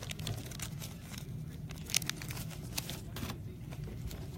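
Trading cards being handled: light clicks and rustles, one sharper click about two seconds in, over a steady low hum.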